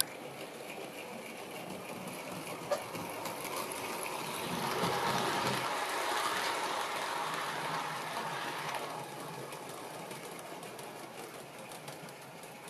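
OO gauge model train, a Bachmann V3 tank locomotive with a rake of coaches, running on the layout, its wheels on the rails making a steady running noise. The noise grows louder as the train comes close, about halfway through, then fades as it moves away, with a single click about three seconds in.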